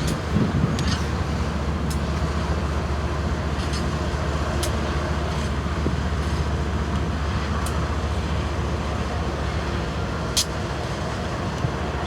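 Diesel freight locomotives running at low speed, a steady low engine rumble with a few sharp clicks over it.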